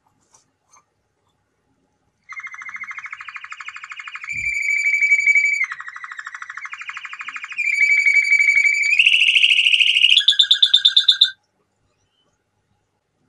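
Male domestic canary singing: a string of rapid trills, each phrase a fast run of one repeated note, switching to a new phrase every second or two. The song starts about two seconds in and stops abruptly near the end.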